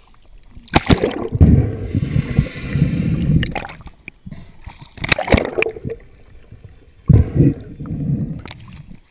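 Seawater splashing and gurgling over a waterproof camera housing as it bobs at the surface, dipping in and out of the waves. It comes in four or five rough surges with quieter gaps.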